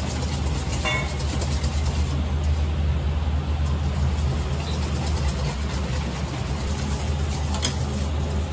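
Restaurant kitchen machinery running with a steady low mechanical hum.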